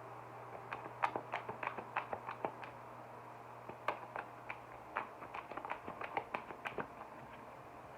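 Tarot cards being handled and shuffled: a run of light, irregular clicks and taps, coming in quick clusters, over a faint steady hum.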